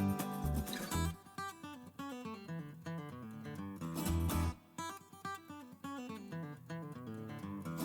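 Background music led by a plucked and strummed acoustic guitar.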